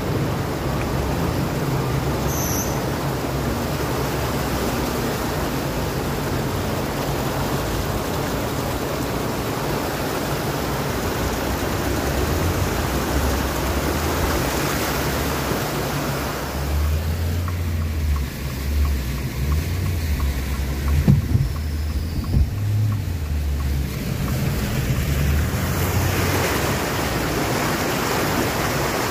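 Car driving through a flooded street: floodwater rushing and splashing around the car over a low engine hum. The water noise eases for several seconds about two-thirds of the way through, leaving the engine rumble and a couple of knocks, then builds again.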